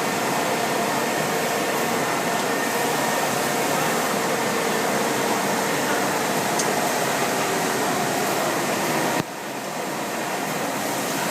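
Automatic single-head glass drilling machine running: a steady whirring hum. About nine seconds in the level drops abruptly, then slowly builds back up.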